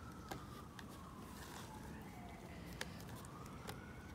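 A faint emergency-vehicle siren wailing, its pitch sliding slowly down and then back up, with a couple of light clicks as a glass is handled.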